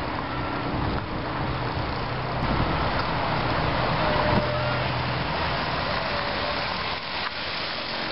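A group of VéloSoleX mopeds' small single-cylinder two-stroke engines puttering steadily as the riders approach, swelling a little in loudness around the middle.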